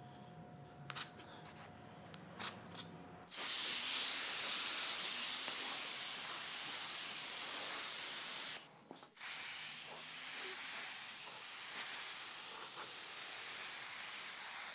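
Compressed-air paint spray gun hissing steadily as sealer is sprayed onto a primed car door. The spraying starts about three seconds in and pauses briefly about nine seconds in.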